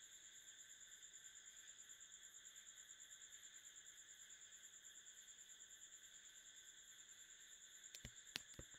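Near silence: faint room tone with a high-pitched whine that pulses about five times a second. Near the end come three sharp clicks in quick succession.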